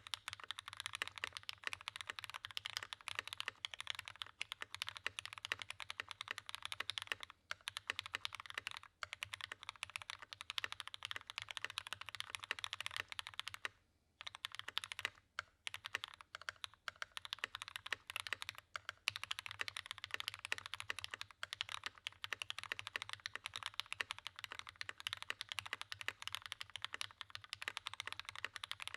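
Continuous typing on a Matrix Project F mechanical keyboard with GHV4-lubed Cherry MX Hyperglide Black linear switches on an aluminum plate, under GMK keycaps: a dense run of keystrokes with a short pause a little before halfway.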